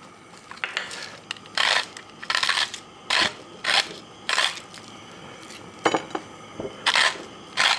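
Hand pepper mill grinding peppercorns in a series of short bursts, one per twist, with a pause of about a second and a half midway.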